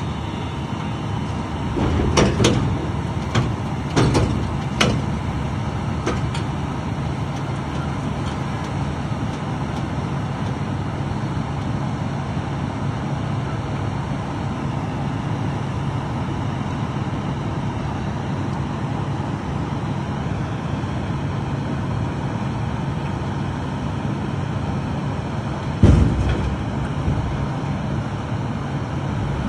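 Road vehicle driving: a steady engine drone with road noise, and a few thumps, several early on and the loudest near the end.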